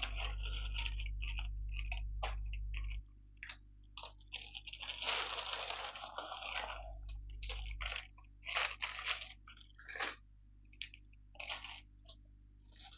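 Packaging crinkling and rustling in irregular bursts as items are dug out of a parcel, with a low rumble under the first three seconds.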